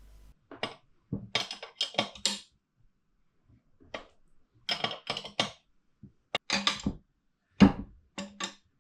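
Hand tools and metal parts clinking and scraping during a swingarm bearing install: irregular short clicks in small clusters with gaps between them.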